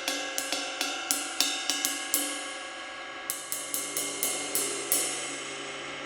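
A Saluda Decadence 24-inch ride cymbal with a crack along the bell, struck repeatedly in a sound test. It goes about three strikes a second, each with a bright, shimmering ring. The playing pauses briefly about two seconds in, resumes with another run of strikes, then is left ringing out near the end.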